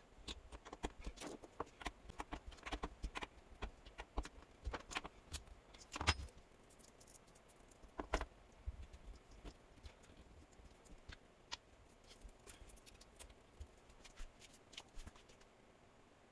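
Irregular light clicks and knocks of parts and tools being handled by hand, thick in the first half and sparser later, with two louder knocks about six and eight seconds in.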